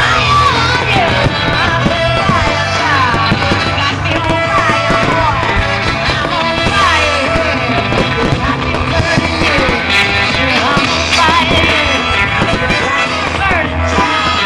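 Loud rock music played over a public address system, with sliding high melodic notes over a steady low bass.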